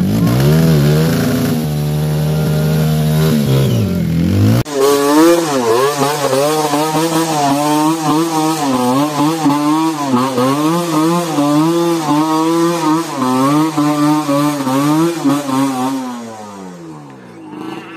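Yamaha WR155 dirt bike's single-cylinder four-stroke engine revving hard under load while spinning its rear wheel through mud on a steep climb. The note is held high for the first few seconds, switches abruptly to a revving that rises and falls continuously, and winds down near the end.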